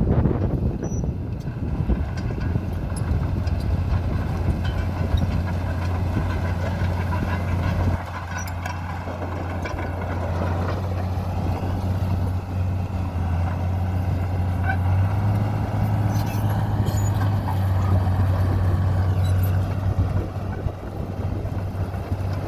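Diesel engine of a 1987 Komatsu D41P bulldozer running with a steady drone. It drops in level about eight seconds in and builds back up in the second half.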